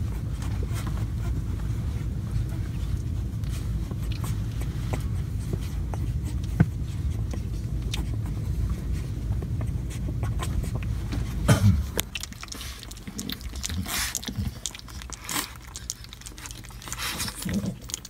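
A steady low rumble with a few faint clicks for about the first twelve seconds; then puppies lapping liquid food from a shallow dish, with irregular wet smacks and tongue clicks.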